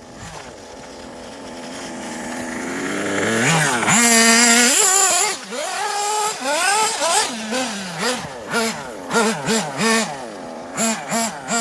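Nitro engine of a Kyosho Inferno MP9 TKI4 1/8-scale RC buggy, growing louder as the buggy approaches. About three and a half seconds in it runs at high revs, then revs up and drops back in quick repeated bursts as the throttle is blipped.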